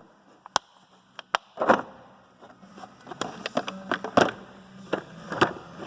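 Metal hand tools clinking and clanking as they are picked up and shifted around in a toolbox drawer: a series of sharp separate clanks, the loudest about a second and a half in and again near four seconds in.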